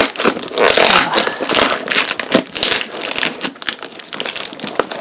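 A cardboard box wrapped in clear plastic packing tape being handled and pulled open: irregular crinkling, rustling and scraping of tape and cardboard.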